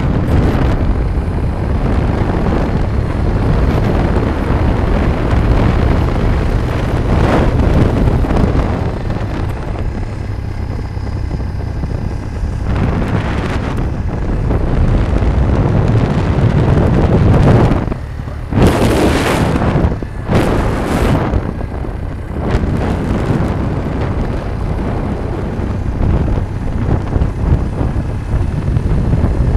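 Wind buffeting the microphone over the rumble of a vehicle travelling along a road, with two brief louder rushes of noise about two-thirds of the way through.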